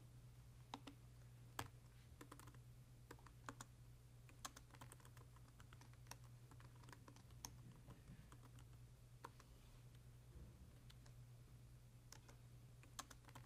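Faint typing on a computer keyboard: irregular single keystrokes with short pauses between, over a faint low hum.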